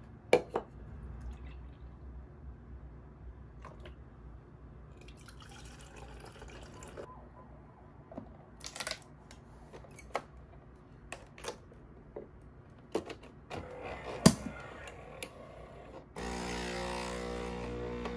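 Clinks and knocks as a glass is set under a Nespresso capsule coffee machine and the machine's lid is clicked shut, the sharpest snap about 14 seconds in. About two seconds from the end the machine's pump starts a steady buzzing hum as it begins brewing.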